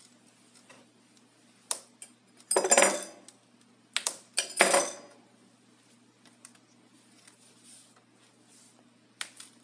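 A hand tool clinking and scraping against a laptop's plastic casing: a few sharp clicks, with a loud cluster about two and a half seconds in, another around four to five seconds in, and a single click near the end.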